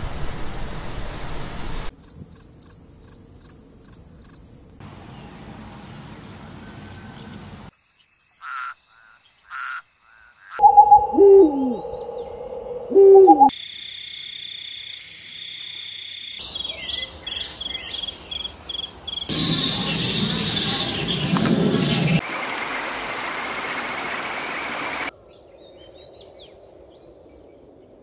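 A string of short nature recordings cut one after another: insects chirping in quick, even pulses and buzzing in high trills, and about halfway through, two loud owl hoots.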